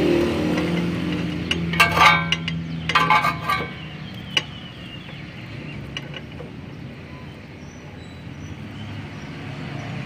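Metal wrench clicking and clinking against the radiator fan temperature switch as it is tightened in, a quick cluster of clicks with a short metallic ring about two to three and a half seconds in. Underneath is a low steady hum that fades out about four seconds in.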